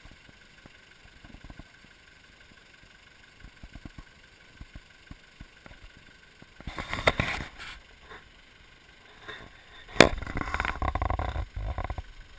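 Scattered small ticks and a short rustling burst about seven seconds in; then a sharp knock, followed by a couple of seconds of rubbing and rumbling on the camera's microphone as the camera is handled.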